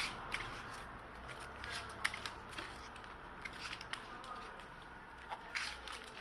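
Rubber insulating tape being pulled off the roll and wrapped around a welding electrode holder, giving irregular soft crackles and clicks. A denser cluster of clicks comes near the end.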